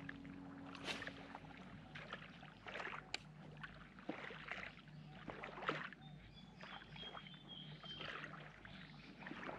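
Faint ambience of small ripples lapping at the edge of a calm sandy beach, with scattered soft ticks and splashes at irregular moments.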